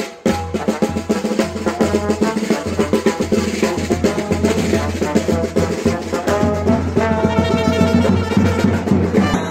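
Lively dance music: fast, dense drumming under a loud reedy, brass-like melody.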